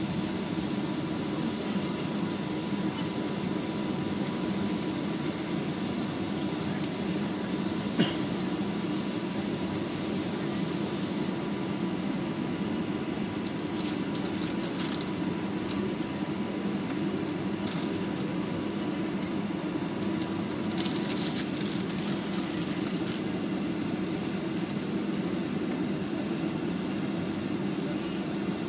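Steady cabin hum inside a Boeing 757 as it taxis, the engines at idle under the air-conditioning noise, with a faint steady tone. A single sharp click about eight seconds in, and a few faint clicks later on.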